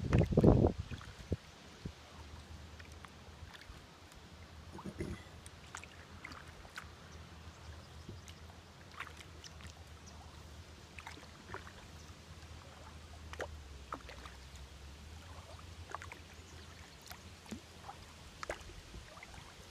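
Kayak paddling on calm water: a paddle dipping and water dripping, heard as scattered small splashes and ticks. A loud low rush or thump comes in the first second, and a smaller one about five seconds in.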